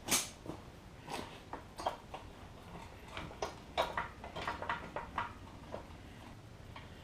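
Hand tools and metal scooter parts being handled during disassembly: an irregular string of clicks, knocks and clinks that dies away near the end.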